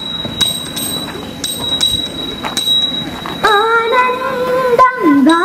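Sharp claps or knocks about twice a second over a steady high whine, then from about three and a half seconds in a woman singing slow, held notes: the opening of a Margamkali song.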